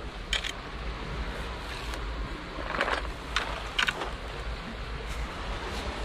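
Dry grass crackling and rustling in a few short bursts as it is gripped and brushed through while climbing over rocks, over a steady rush of wind on the microphone.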